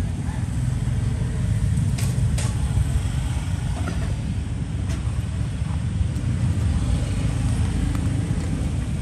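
Steady low rumble of background motor traffic, with a few light clicks about two seconds in and again near five seconds.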